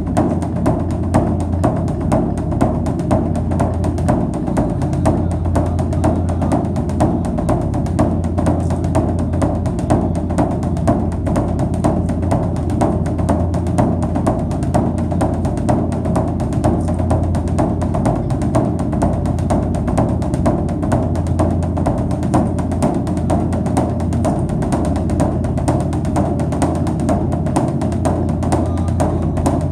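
Background music with drums and percussion keeping a steady beat.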